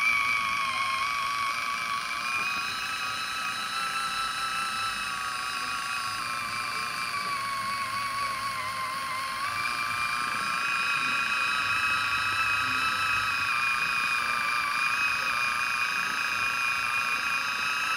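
Kitchen Mama Orbit One electric can opener running on the rim of a large can: a steady motor whine that sags slightly in pitch about halfway through, then picks back up as it keeps cutting around the lid.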